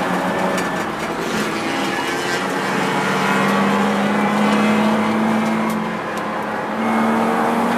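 BMW E36 race car's straight-six engine running hard under throttle, heard from inside the cabin; it eases off briefly about six seconds in, then picks up again.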